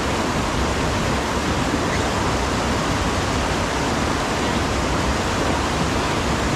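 Steady rushing of a whitewater river rapid.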